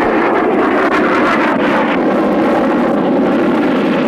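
Four-engine jet airliner landing, its engines making a loud, steady jet noise.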